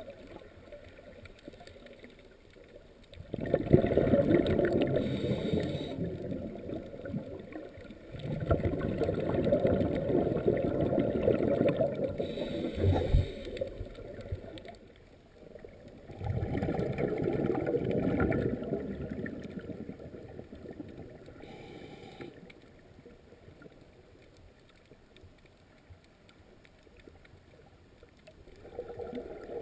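Scuba regulator exhaust bubbles from a diver breathing out underwater: three long bubbling rushes a few seconds apart, with quieter pauses between, and a fourth starting near the end. A short dull knock sounds during the second rush.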